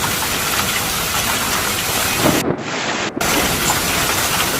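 Severe storm noise: a steady, dense roar of heavy precipitation and wind, briefly going muffled just past the halfway point.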